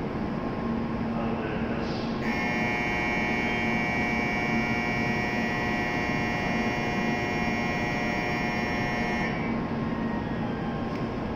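Shinkansen platform departure signal: a steady electronic bell tone starts about two seconds in, rings for about seven seconds and cuts off, over a low steady hum at the platform where the train stands waiting.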